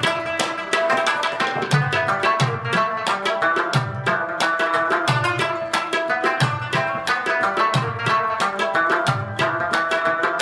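Background music: a rubab instrumental, fast plucked lute notes over a steady drum beat.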